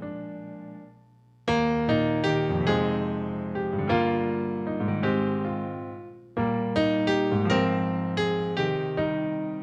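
Solo piano playing slow sustained chords that ring out and decay. The music fades almost to silence about a second in, then comes back with a new chord half a second later, and another strong entry comes about two-thirds of the way through.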